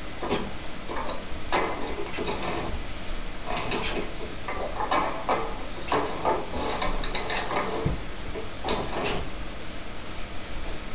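A birdcage rattling and knocking irregularly, with scraping, as a cockatiel rubs itself against a perch in the cage.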